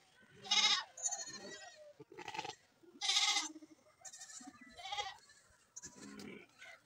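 Farm animals bleating: about four short calls with a wavering tone, with fainter calls in between, from livestock penned for spraying against parasites.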